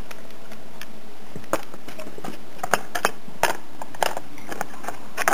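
Light irregular clicks and taps of small plastic toy figures being handled and set down in a plastic toy bed, over a steady hiss.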